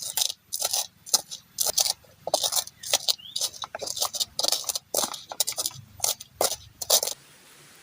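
Close-up camp eating sounds: quick, irregular crunches and clinks, two or three a second, that stop abruptly about seven seconds in. After that only a faint steady hiss remains.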